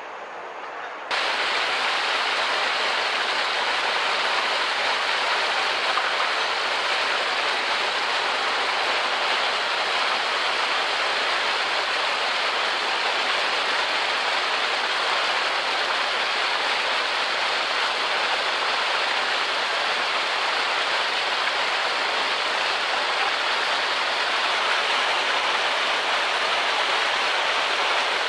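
Fountain water pouring over a stone ledge and splashing into its basin: a steady rush that starts suddenly about a second in.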